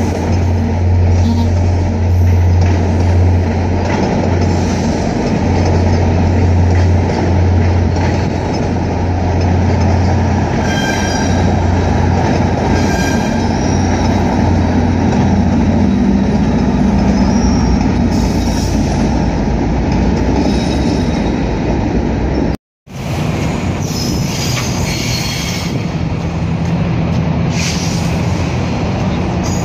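VIA Rail passenger cars rolling past at close range: a loud, steady rumble of wheels on rail under a low hum, with short high wheel squeals in the middle. The sound cuts off abruptly about two-thirds of the way through, and a steady train rumble with a low drone then resumes.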